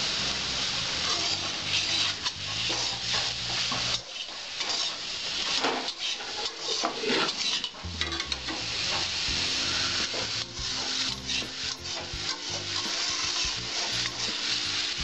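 Red spinach frying in ghee in an aluminium kadai: a steady sizzle with repeated scraping strokes as a metal spatula stirs against the pan.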